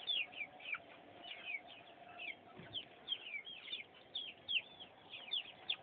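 Young chickens peeping: a continuous run of short, high, falling chirps, several a second.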